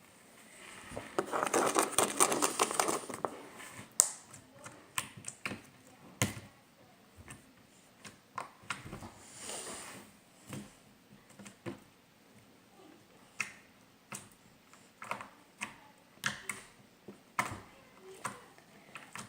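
Slime being squished and poked by hand, making sticky crackling and popping clicks: a dense burst of crackles for about two seconds near the start, then scattered single pops and clicks.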